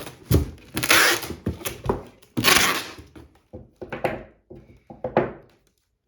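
Adhesive packing tape being pulled off the roll in several long, noisy pulls and wound around a cardboard box, with knocks from the box being handled.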